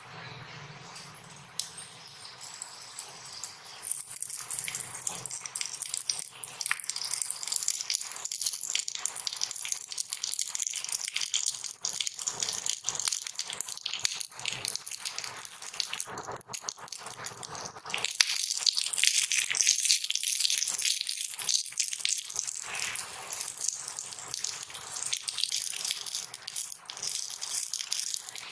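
Hot oil sizzling and crackling with tempering spices in a miniature clay pot, with many small pops. About halfway through, cooked rice is tipped into the pot and stirred with a tiny spoon, adding light scraping and rattling.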